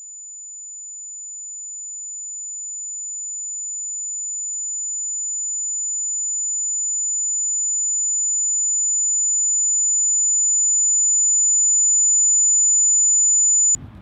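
A single steady high-pitched tone, a film's ear-ringing sound effect of the kind used for deafness after a gunshot. It grows steadily louder and cuts off suddenly near the end, leaving faint outdoor background.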